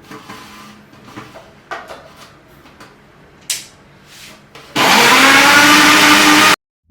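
Countertop blender switched on and running at full speed, its motor pitch rising as it spins up through tomatoes, then cutting off suddenly. Before it, a few light clicks and knocks of handling.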